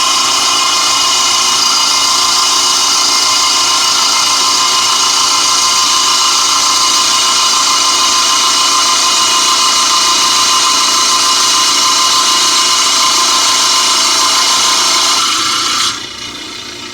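Lapidary trim saw's diamond blade cutting through a piece of crazy lace agate clamped in the saw's vise, a loud steady grinding whine. The sound drops off sharply near the end as the cut finishes.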